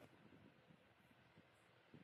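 Near silence, with faint soft taps and rustle from the cloth being handled as a needle and wool thread are worked through it.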